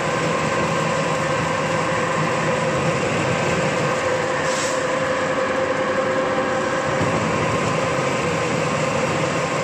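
Electric feed pellet mill running steadily under load, a constant mechanical hum and whine with several steady tones. A brief scrape about halfway through.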